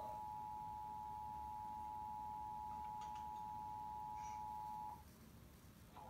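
Emergency Alert System attention signal, the steady dual tone of 853 Hz and 960 Hz sounded together, heard through a TV's speaker as the alert for a Required Monthly Test. It cuts off about five seconds in and starts again right at the end.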